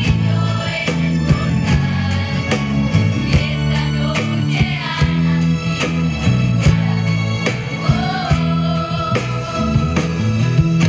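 A live band playing a song with sung vocals over a steady drum beat.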